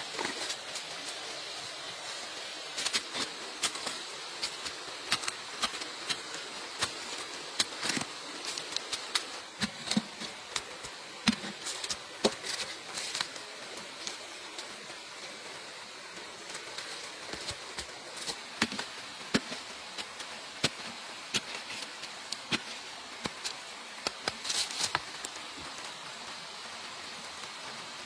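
Bamboo being worked by hand, giving irregular light knocks and clicks over a steady hiss of outdoor ambience.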